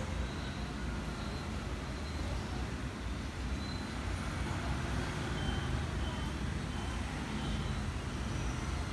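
Steady low background rumble with hiss, with no distinct event standing out.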